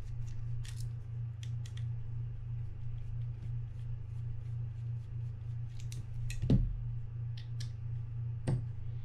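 Small metallic clicks and ticks of a mini screwdriver working tiny screws out of a Penn Spinfisher 5500SSV spinning reel's parts, with a louder knock about six and a half seconds in and another near the end. A steady low hum runs underneath.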